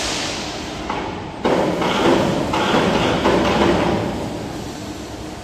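CNC hydraulic press brake cycling: a sudden clunk, then about a second and a half in a loud rush of machine and hydraulic noise with several knocks. It dies away after about three seconds.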